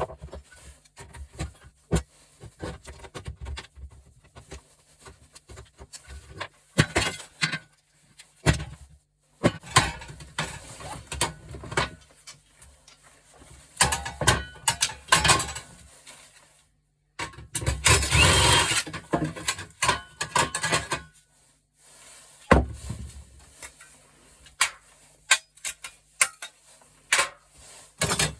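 Metal stove parts and hand tools clanking and rattling as a gas stove is dismantled for scrap: scattered sharp knocks, with a longer stretch of rattling about two-thirds of the way through.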